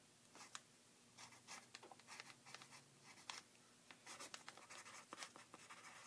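Pencil writing on paper: faint, irregular scratching strokes of the lead as a short note is written.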